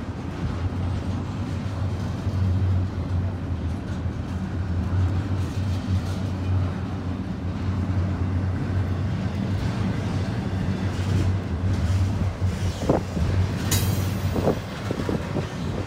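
Double-stack intermodal freight train rolling past: a steady rumble of steel wheels on rail with a low hum, and a few sharp knocks near the end.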